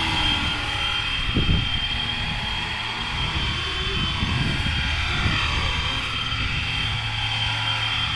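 Electric RC helicopter, a FlyWing Bell 206 V2 power frame under a 3D-printed Cobra-style fuselage, in flight: the steady high whine of its motor and the hum of its rotors, with a few low rumbling gusts.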